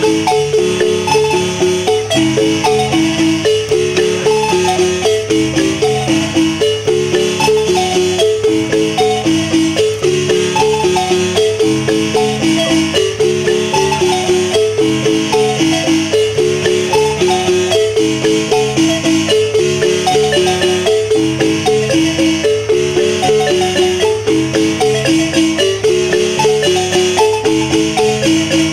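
A large wooden marimba with wooden resonator boxes, played with mallets by several players at once, playing a son: a steady, evenly repeating melody and accompaniment pattern that runs without a break.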